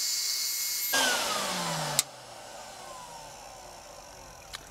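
Shop vacuum and the cylinder shaving machine running, then switched off about a second in. The motor winds down with a falling whine, a sharp click comes about two seconds in, and a fainter whine fades after it.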